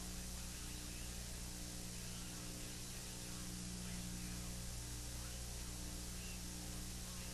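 Steady electrical hum with constant hiss, and a faint higher tone that pulses on and off about once a second.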